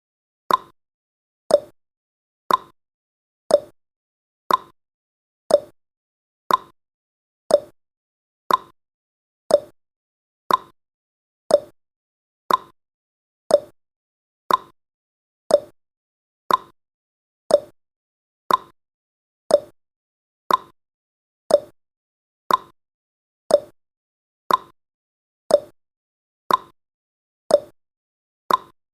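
Clock-style ticking sound effect of a countdown timer, one short sharp tick each second, steady and even.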